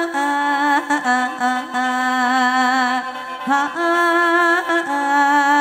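Khaen, the Isan bamboo free-reed mouth organ, playing a mor lam melody in long held chords over a sustained drone, the notes shifting about once a second.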